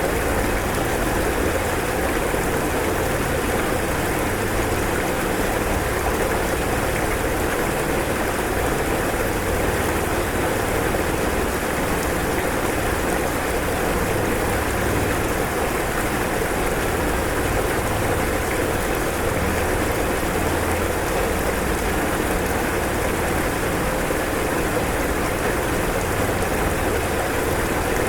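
Fast-flowing floodwater rushing in a steady, unbroken wash of noise.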